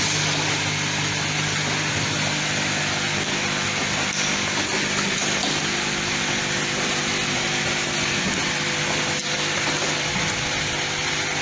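Automatic plastic clothespin assembling machine running, with its vibratory bowl feeders: a steady low hum under a dense, even mechanical noise.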